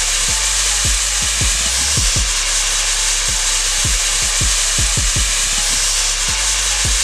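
Oversized homemade matchstick head burning, with a loud steady hiss as it sputters and pours out thick smoke.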